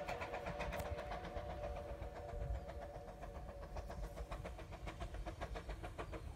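1930 Baldwin 4-6-2 narrow-gauge steam locomotive working toward the listener, its exhaust beating in quick, even chuffs of about five a second. A steady cluster of tones sounds with the chuffs and fades away about four seconds in, over a low rumble.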